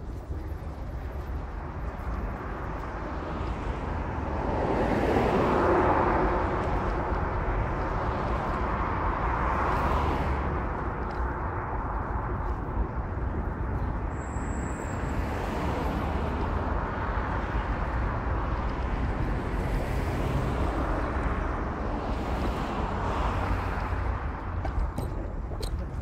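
Wind rumbling on the microphone outdoors, with several slow swells of rushing noise. The loudest swell comes about five to six seconds in.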